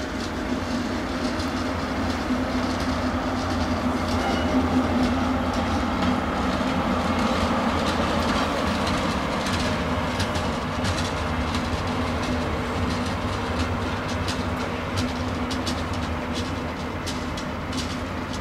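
Diesel-hydraulic shunting locomotive of the DB class 290/294 type passing slowly, its engine droning steadily and loudest around the middle. In the second half its wheels click over the rail joints.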